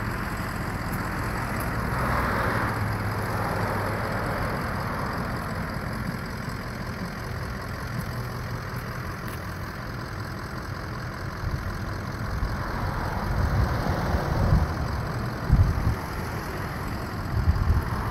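A vehicle engine idling steadily, with a few low thumps in the last few seconds.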